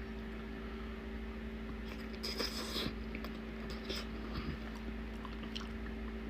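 Quiet eating sounds: chewing with scattered small clicks, and a brief louder patch of noise about two and a half seconds in, over a steady low electrical hum.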